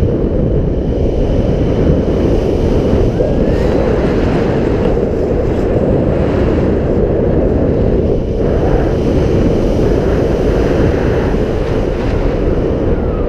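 Loud, steady rush of wind buffeting the action camera's microphone at the high airspeed of a tandem paraglider's acro manoeuvres.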